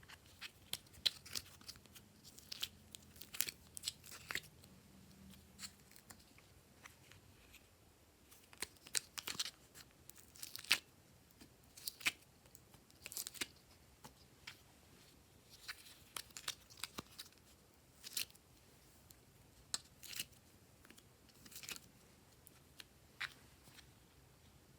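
Glossy slime being worked by hand, giving irregular sticky clicks, pops and crackles, some in quick clusters.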